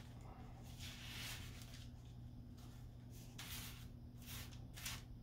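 Faint scraping and rustling of a metal tablespoon scooping dry sift powder and pushing it into a small filter bag: several soft strokes, over a low steady hum.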